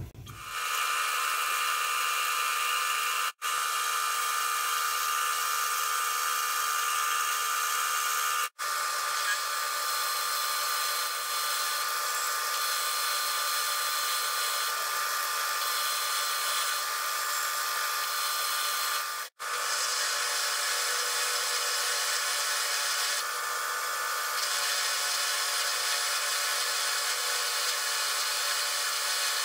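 Atlas metal lathe running steadily with a whine while a twist drill in the tailstock chuck drills into the spinning part. The sound drops out abruptly for an instant three times.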